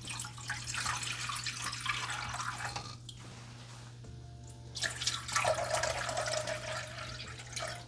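Water poured from a glass measuring cup into a stovetop pot, in two pours: one over the first three seconds or so, and another from about five seconds in that carries a steady hollow note as the pot fills.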